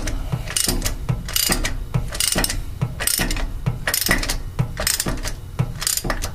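Hand ratchet wrench clicking in repeated strokes, a bit under one a second, as it tightens a brass anode into a cast-iron valve flange on a fire pump.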